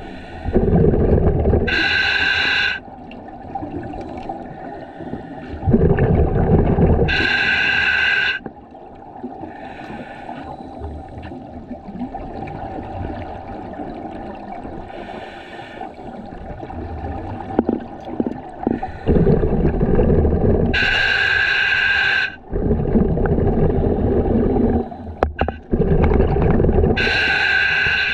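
A scuba diver breathing underwater through a regulator. Several breaths come with pauses between them, each a loud rumble of exhaled bubbles, most ending with a sharp hiss from the regulator.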